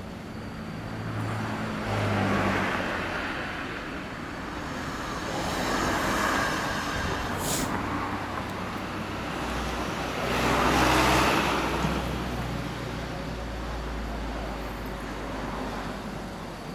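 Road traffic: cars passing one after another, swelling in loudness about two, six and eleven seconds in.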